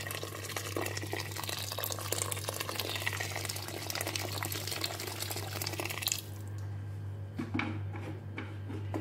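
Hot water poured from a jug into a metal pot of raw rice and orange lentils, a steady splashing that stops about six seconds in. A few light knocks follow.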